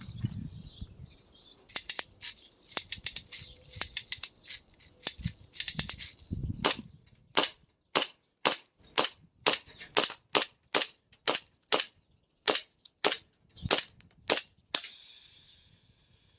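CO2 airsoft 2011 Combat Master pistol firing shot after shot: a quick string of lighter snaps, then a steady run of louder shots about two a second, which stop about a second before the end.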